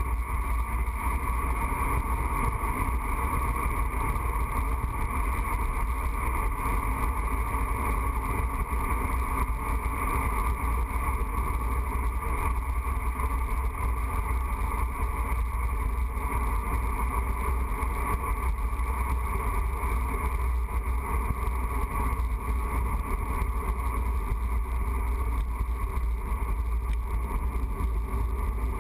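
Steady wind rush and road rumble on a bicycle-mounted camera during a fast descent, a loud unbroken roar heavy in the deep buffeting, with a constant hum over it.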